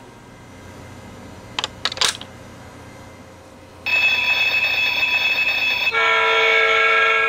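Battery toy train coin bank: a few light clicks about two seconds in as a coin is set on the toy train car, then about four seconds in the bank's electronic sound effect starts abruptly, a loud steady ringing electronic tone that after two seconds switches to a lower, steady chord-like tone.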